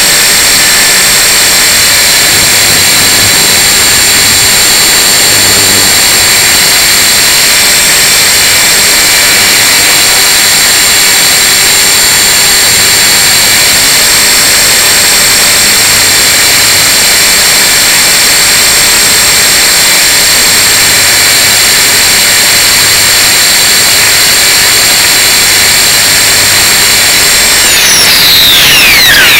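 Tarot 450 Pro electric RC helicopter running: its motor and drive whine steadily at several high pitches over a rushing rotor noise, heard up close. Near the end the whine falls sharply in pitch as the motor slows down.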